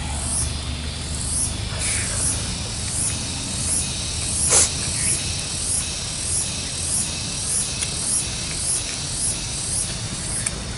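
Close-miked eating sounds: chewing of beef curry in a steady rhythm of about one and a half chews a second, with one sharper click about four and a half seconds in.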